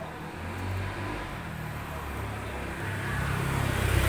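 A motor engine running, a low drone that wavers in pitch and grows louder about three seconds in.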